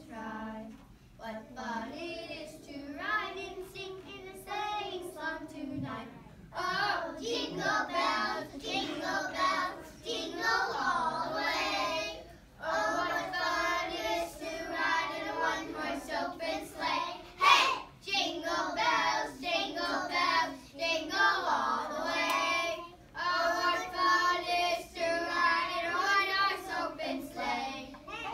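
A class of kindergarten children singing together, with short breaks between phrases. One sharp tap sounds about two-thirds of the way through.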